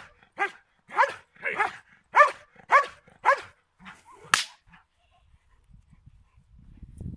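A large black dog barking again and again, about two barks a second, as it lunges on its leash at a helper holding a bite sleeve during protection training. The barks weaken after about three and a half seconds, then comes a single sharp crack, and near the end a low rumbling noise.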